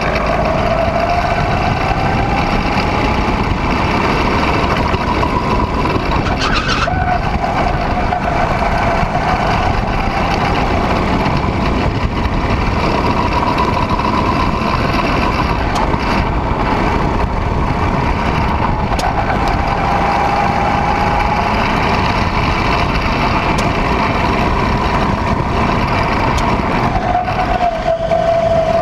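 Go-kart engine running at speed, its note climbing slowly along the straights and dropping sharply about seven seconds in and again near the end as the kart slows, over a constant loud rushing noise.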